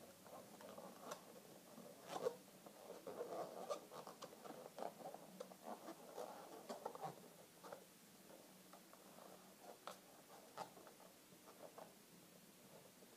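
Inflated latex modelling balloons rubbing and squeaking faintly as hands squeeze and shape a balloon sculpture. Small irregular squeaks and creaks are thickest in the first half, with one sharper squeak about two seconds in.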